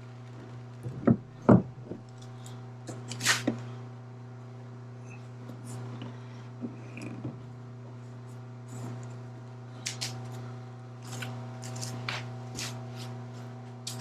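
Scattered clicks and knocks of hand tools working on the roller's water tank, with two low thumps a little over a second in and a cluster of clicks near the end, over a steady low hum.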